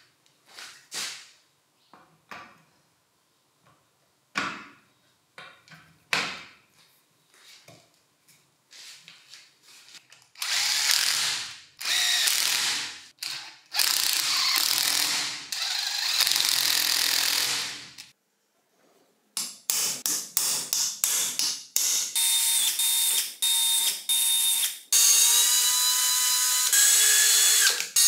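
Handling clicks and knocks, then a small electric power tool starting and stopping. It runs noisily for several seconds, then in many short bursts with a steady whine that jumps in pitch near the end.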